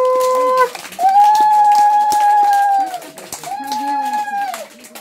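Conch shell (shankha) blown in long held notes. One note ends about half a second in, a second is held for nearly two seconds, and a shorter one follows near the end, each sagging in pitch as the breath gives out. Scattered hand claps can be heard underneath.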